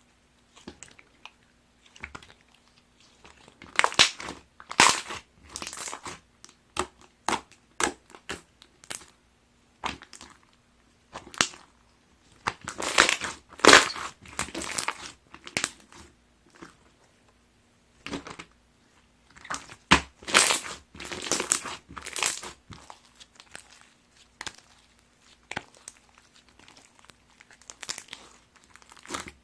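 Clear slime mixed with heart-shaped ring toppings being squeezed and pressed by hand, making irregular clusters of wet crackling and clicking pops with short quiet gaps between.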